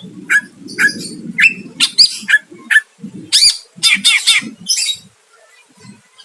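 Caged green leafbird (cucak ijo) singing a run of short, sharp call notes about twice a second, stopping near the end.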